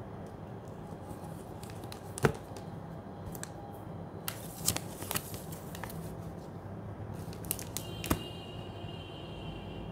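Foil wrapper of a chocolate bar crinkling and rustling as hands handle broken pieces of chocolate and set them back in it, with scattered sharp clicks. The loudest click comes about two seconds in, and another near the end.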